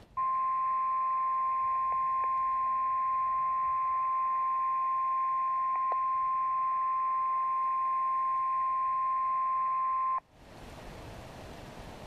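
NOAA Weather Radio warning alarm tone, the single 1050 Hz tone played through a weather radio's speaker: one steady high beep lasting about ten seconds that cuts off suddenly. It signals that a warning, here a severe thunderstorm warning, is about to be broadcast.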